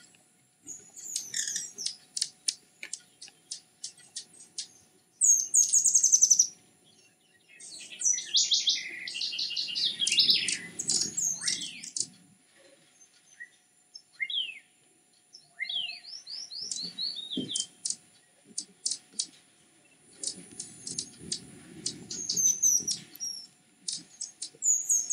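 Hummingbirds calling: rapid, high, sharp chips and squeaky chattering trills, some falling in pitch, in bursts with short gaps, with a low rumble underneath at times.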